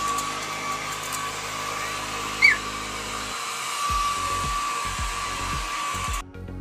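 Small handheld electric hair dryer running steadily with a high motor whine, blowing on a wet puppy's fur, then cutting off suddenly near the end. A short high squeak about two and a half seconds in.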